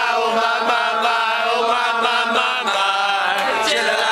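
Two men singing a duet together, holding long drawn-out notes.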